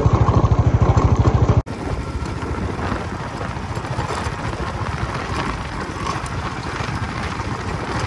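Motorcycle engine running under way on a dirt track, with a fast, even low pulsing at first; about a second and a half in, a cut brings a more even, noisier running sound.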